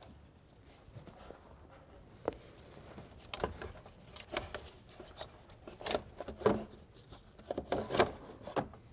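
Turbo boost pipe being worked out of a VW engine bay by hand: rubbing and scraping against surrounding parts, with scattered light knocks and clicks, most of them in the second half.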